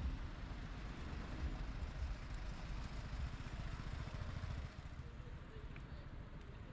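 City street traffic with a motor vehicle running close by, a low rumble that eases off about two-thirds of the way through.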